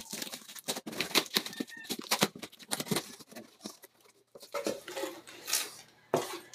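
Scissors cutting along packing tape on a cardboard box, a quick run of snips and crackles. After a short pause, cardboard flaps are folded back and plastic wrapping rustles.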